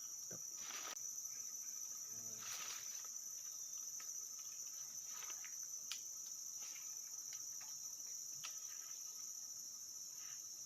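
A steady, high-pitched chorus of insects, with a few faint brief rustles and clicks over it.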